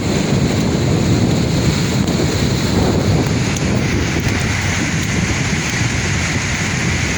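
Sea surf washing in steadily, with wind buffeting the microphone: a continuous rushing noise.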